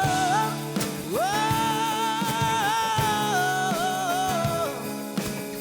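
A ballad with a long held melodic note with vibrato over sustained accompaniment; the note scoops up into pitch about a second in and lets go near the end.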